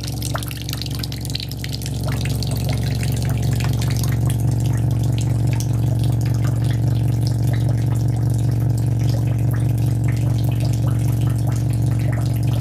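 A stream of water from a hose splashing and running, over a steady low hum from a subwoofer driven by a low-frequency tone.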